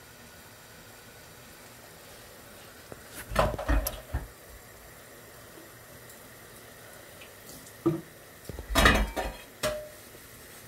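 Pots and cooking utensils clattering and knocking in two short bursts, about three seconds in and again around eight to nine seconds in, over a low steady hiss.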